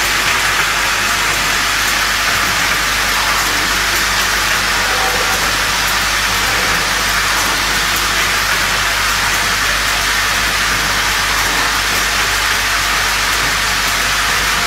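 Automatic ring-type spring clothespin assembling machine running, its vibratory bowl feeders and pneumatic assembly stations making a steady, even, hiss-like rattle with faint scattered ticks.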